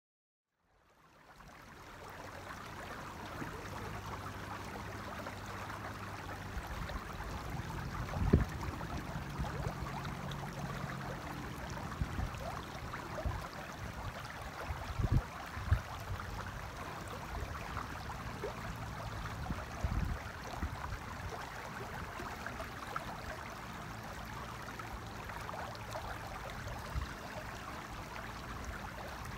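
Shallow river flowing over stones, a steady rushing that fades in about a second in, with a few short low thumps now and then.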